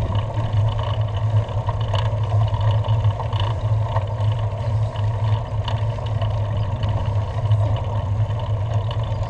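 Steady low rumble of wind buffeting a bicycle-mounted camera's microphone, mixed with tyre and road noise as the bike rolls along an asphalt street.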